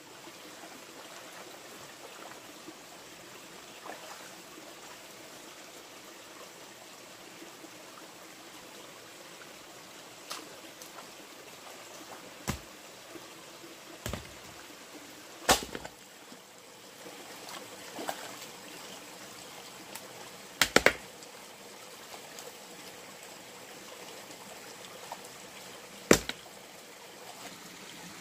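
Steady rushing background noise with about six sharp knocks spread unevenly through it; the loudest come about halfway in, as a close pair about three-quarters of the way in, and once more near the end.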